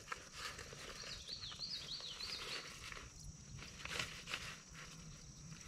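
Faint outdoor ambience with light clicks and rustles from hands working a small object, one sharper click about four seconds in. A bird gives a quick run of high, rising-and-falling chirps about a second in.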